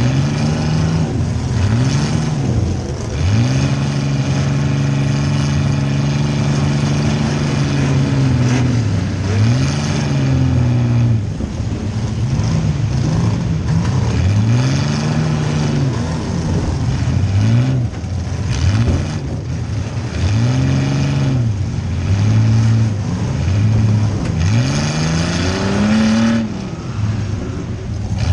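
Compact car's engine revving up and dropping back over and over, held at a steady high speed for a few seconds near the start, heard from inside the car during a demolition derby.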